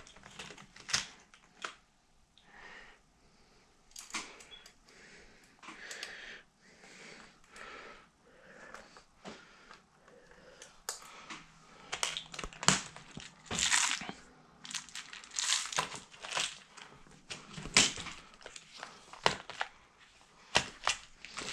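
Hands handling a hard drive in its drive caddy and driving its mounting screws: irregular small clicks and scrapes, busier in the second half.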